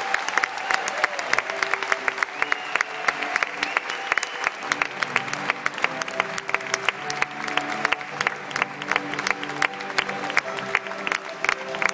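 Church congregation applauding a newly presented married couple, with instrumental recessional music starting under the clapping and filling out with sustained notes about four seconds in.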